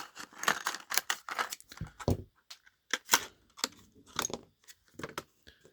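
A miniature's cardboard box being opened and its packaging handled: a run of short crinkles, rustles and sharp clicks.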